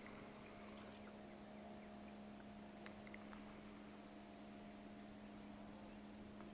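Near silence: a faint steady hum with a few faint scattered ticks.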